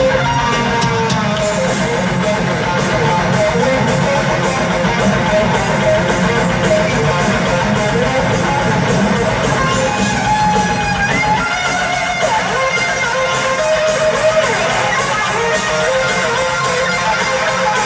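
Heavy metal band playing live: distorted electric guitars with a bending lead melody over fast, driving drums and cymbals.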